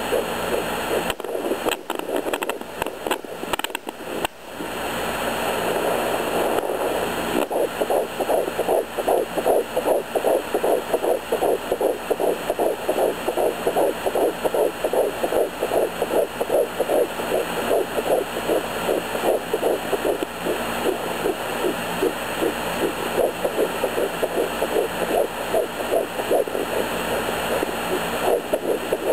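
Sonoline B handheld fetal doppler picking up a fetal heartbeat through its speaker: a fast, even whooshing pulse of about two and a half beats a second, the rate of a fetal heart at 11 weeks. For the first few seconds there are scratchy clicks as the probe is moved, and the pulse settles in about six seconds in.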